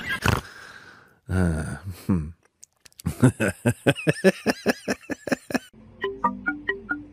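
A fast string of short voiced sounds, about five a second, from a person or an animal. Light plucked music begins about six seconds in.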